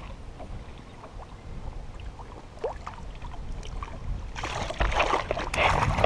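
Low wind and water rumble around a kayak, then from about four and a half seconds a hooked fish splashing and thrashing at the surface beside the hull, in loud, ragged bursts.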